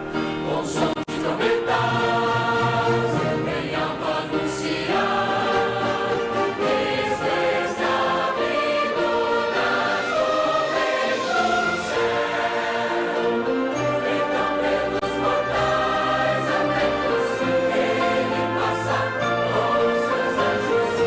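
A choir singing a sacred piece with a band accompanying, full and steady throughout.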